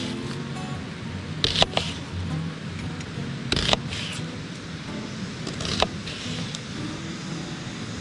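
Folding knife slicing thin rings off an onion onto a wooden cutting board: three crisp cuts about two seconds apart, over a low steady rumble.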